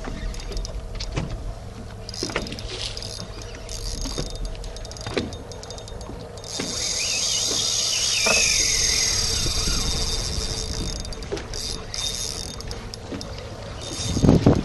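Spinning reel's drag buzzing as a hooked barracuda pulls line off: a few short spurts, then a steady run of about four seconds from about halfway through. Wind rumbles on the microphone throughout, with a strong gust near the end.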